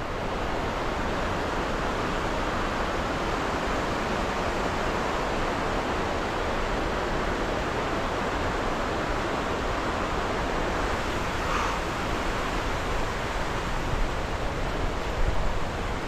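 Steady rushing of a rocky river's white-water rapids below.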